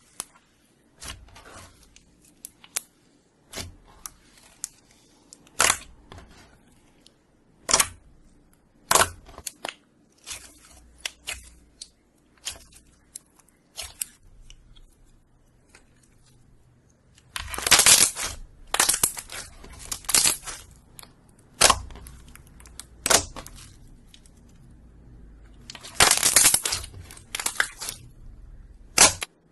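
Slime being handled, squeezed and poked, giving a series of sharp clicks and pops at irregular intervals, with denser, louder clusters about two-thirds of the way through and again near the end.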